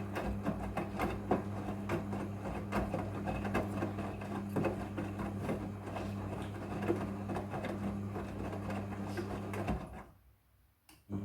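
Front-loading washing machine drum turning, with a steady motor hum and a stream of small knocks and clicks from the tumbling load. The sound drops away for about a second near the end, then resumes.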